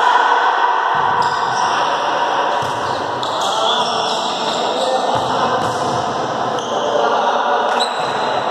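Volleyball rally in an echoing sports hall: the ball being struck, sneakers squeaking on the court, and players calling out.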